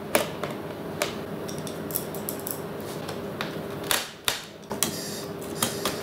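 Irregular small clicks and taps as hands handle the plastic and metal parts, ribbon cables and chassis of an opened Pioneer DDJ-1000 DJ controller during reassembly, over a faint steady hum.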